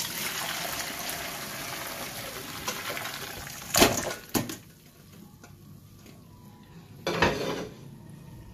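Hot cooking water poured from a steel pot into a stainless steel colander in a metal sink, a steady rushing splash for the first few seconds. Then boiled crayfish tip out into the colander with two sharp clattering knocks against the metal, and a further metal knock near the end.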